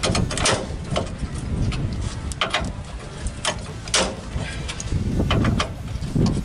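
Socket ratchet clicking in short irregular bursts as it is worked back and forth on a stuck rear U-bolt nut, over a low rumble.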